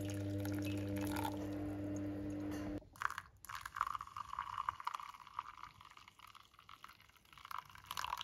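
Hot water poured in a thin stream onto ground coffee in a paper drip-bag filter hung on a mug, splashing and trickling unevenly. A steady held musical chord sounds under the first few seconds and cuts off abruptly, leaving the pour on its own.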